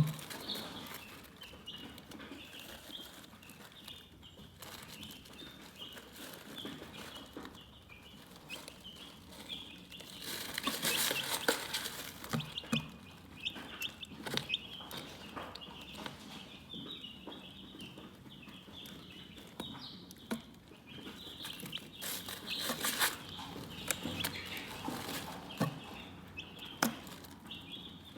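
Chickens chirping: a near-continuous patter of short, high peeps, with louder bursts of noise about ten seconds in and again a little past twenty seconds.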